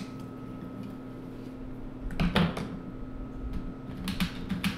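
Drawing pens and pencils being rummaged through and handled, with a cluster of clatters and knocks about two seconds in and a few more clicks and knocks near the end, over a faint steady hum.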